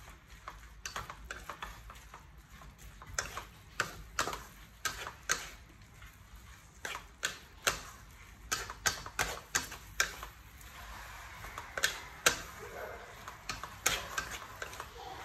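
Wooden spatula stir-frying food in an aluminium pan, knocking and scraping against the pan in irregular clicks, several a second at times.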